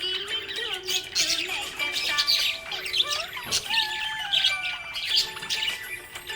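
Budgies chirping and squawking in a dense run of short, high chirps, over background music.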